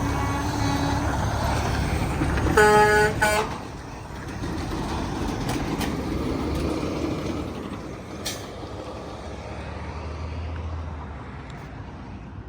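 A semi-truck's air horn sounds one short blast, under a second, about two and a half seconds in, over the steady running of truck engines and road traffic.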